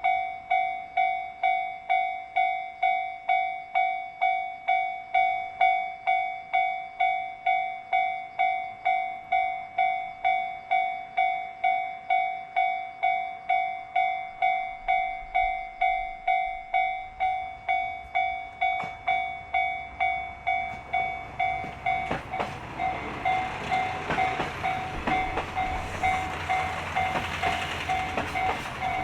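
Japanese level crossing's electronic warning bell ringing steadily, nearly twice a second. From about 15 seconds in, a train's rumble builds, and from about 22 seconds it passes close with wheel clatter on the rails while the bell keeps ringing.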